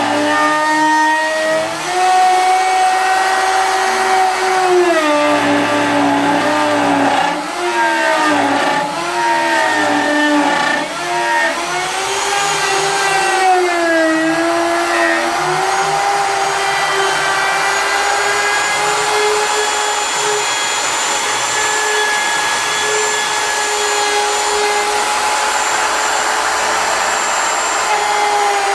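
Wood router running with a steady whine while cutting grooves in a turned wooden piece. Its pitch sags several times in the first half as the bit bites into the wood, then holds steady through the second half.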